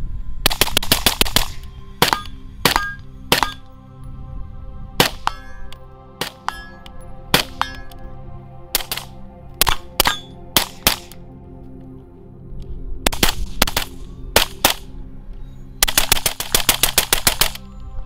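Suppressed AR-15 with an LMT 12.5-inch Specwar upper firing. A quick string of shots comes near the start, then single shots and pairs, a short burst a few seconds before the end, and a long rapid string near the end. Background music with sustained tones plays underneath.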